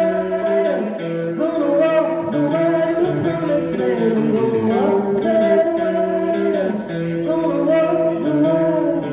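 Live solo voice singing long held notes that slide between pitches, accompanied by an electric guitar.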